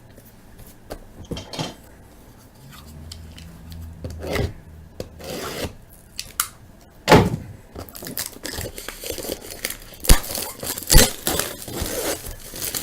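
A cardboard trading-card box being handled and opened: rubbing and tearing, with scattered clicks and a few sharp knocks in the second half.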